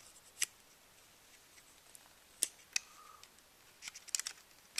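Small sharp clicks and taps of the plastic parts of a Samsung SL605 compact camera being handled while a replacement LCD screen is fitted: a single click about half a second in, two more around the middle, then a quick cluster of clicks near the end.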